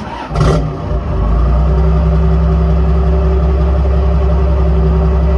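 1997 Cummins 12-valve 5.9 L inline-six turbo diesel with a coal cam starting up through its twin exhaust stacks: a rough catch with a brief sharp burst about half a second in, then it settles into a steady idle about a second in.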